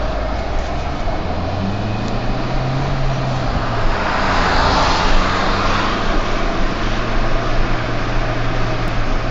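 Steady engine and road noise of a moving car, heard from inside the car, with a louder rush of noise swelling about four to six seconds in.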